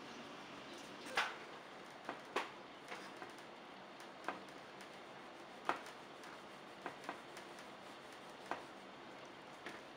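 Irregular light clicks and taps of fingers and chicken pieces against a ceramic bowl as chicken breast is dredged in seasoned flour, over a faint steady hiss. The sharpest clicks come a little over a second in and again about a second later.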